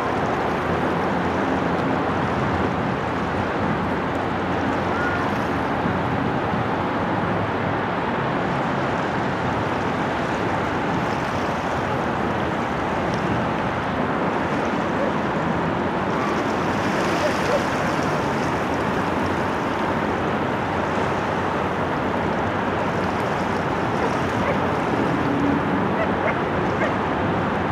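Steady rushing noise of wind and water along the shoreline.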